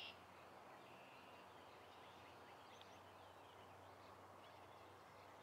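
Near silence: faint outdoor ambience, with a few faint bird chirps in the middle.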